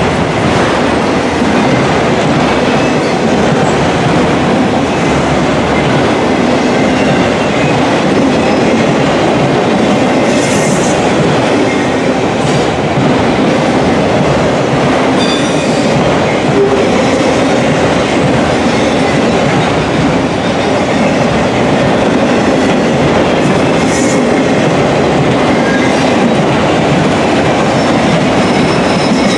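Freight train of autorack cars rolling past close by, its steel wheels on the rails making a loud, steady rumble, with a few brief high squeals from the wheels.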